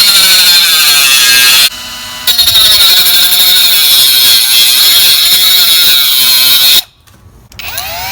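Cordless 12V brushless mini angle grinder with a cutting wheel cutting into material: a loud, high grinding whose pitch sags and recovers under load. It eases to a lighter free-running whine for a moment about two seconds in, then cuts again until it shuts off near seven seconds, and spins up again with a rising whine just before the end.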